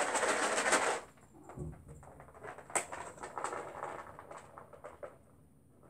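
Rustling and handling noise as cat treats are fetched, loudest in a burst during the first second, then quieter rustles and a few light taps.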